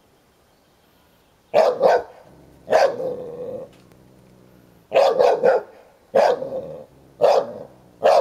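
A young American Staffordshire Terrier play-barking at an older dog: after a short quiet, about ten short, sharp barks in quick clusters of one to three.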